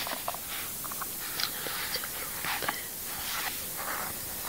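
Fingers and fingernails tapping and rubbing on a high-heeled shoe: a scatter of small clicks and short scratchy sounds.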